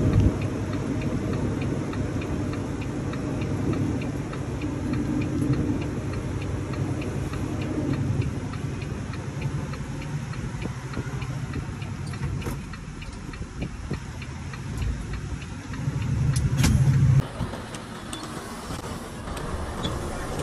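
Tractor-trailer's diesel engine running as the truck is driven, heard from inside the cab, with a steady light ticking over it. The engine is louder briefly around 16 seconds in, then the sound drops off.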